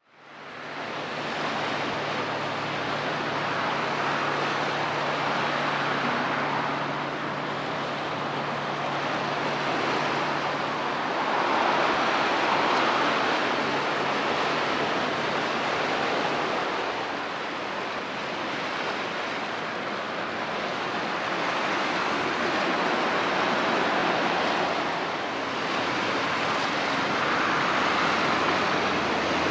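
Sea water washing against the shore: a continuous hiss that swells and eases every several seconds. A faint low hum runs beneath it through the first half.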